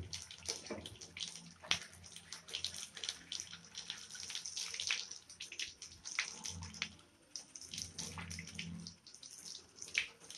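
Water running from a bathtub tap and splashing irregularly over hands and a copper-clad circuit board blank as it is rinsed clean of soap.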